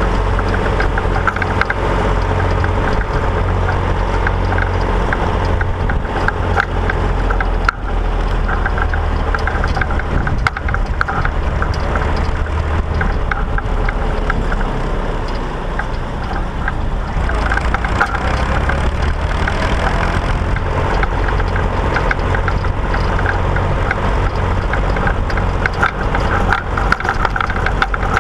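Massey Ferguson 135 tractor engine running steadily under way, with a constant clattering rattle over the low engine drone; the level dips briefly about halfway through, then picks up again.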